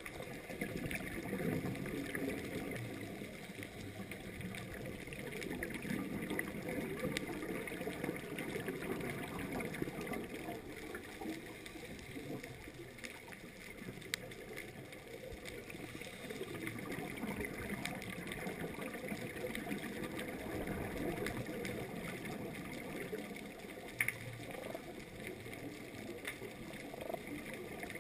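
Muffled underwater noise picked up through a camera's waterproof housing: the rush and gurgle of a scuba diver's regulator breathing and exhaust bubbles, swelling and fading in slow waves, with fine crackle above it and a couple of sharp clicks.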